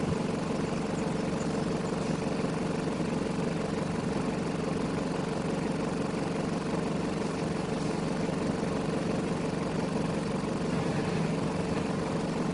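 A vehicle engine idling steadily, with an unchanging hum.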